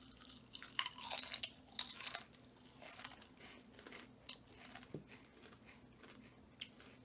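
Two people biting into and chewing Lay's Spicy Cheddar potato chips: crisp crunching, densest in the first couple of seconds, then quieter chewing with scattered crunches.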